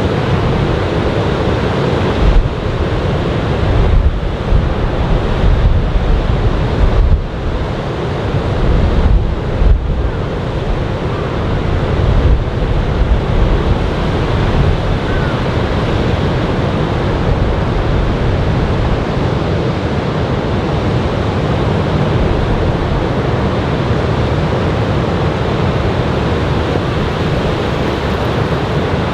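Ocean surf from a typhoon swell washing and breaking steadily. Wind buffets the microphone in gusts through roughly the first half.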